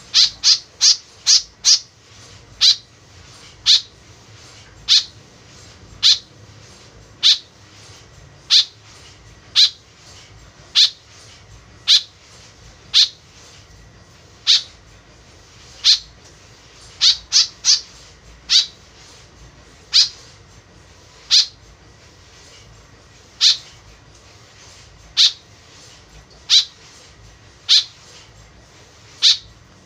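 White-breasted woodswallow giving short, sharp calls about once a second, with quick runs of four or five notes near the start and three notes a little past the middle. This is the bird's lively call used as a lure to draw in wild woodswallows.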